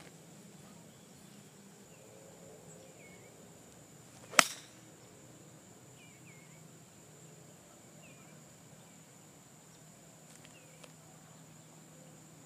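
One sharp crack of a golf iron striking the ball about four and a half seconds in, a low punch shot played from the rough. Under it, a steady high insect drone and a few short bird chirps.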